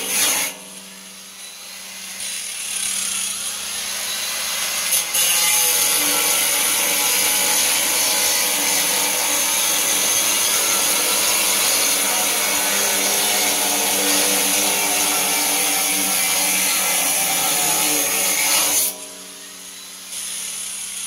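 Angle grinder with a cutoff disc cutting aluminum angle stock, fed in lightly: the spinning disc's hiss builds over the first few seconds and becomes a loud, steady high-pitched cutting noise about five seconds in. About two seconds before the end the disc leaves the metal and only a quieter motor hum is left.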